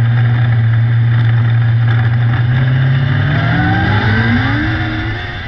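600cc micro sprint car engine running at a steady note, then revving up with a rising pitch from about three seconds in, the sound fading out near the end.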